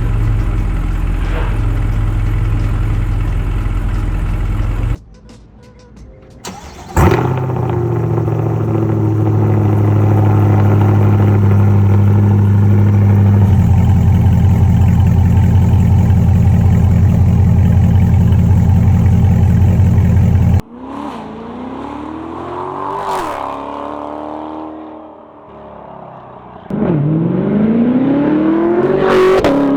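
C8 Corvette's LT2 V8 through its exhaust, in several cut-together clips. It idles steadily, flares up sharply about seven seconds in as it starts and settles into a loud steady idle, then revs rise and fall. Near the end comes a louder rising rev.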